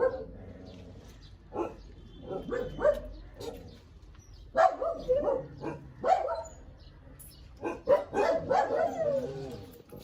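A dog barking in several short bursts.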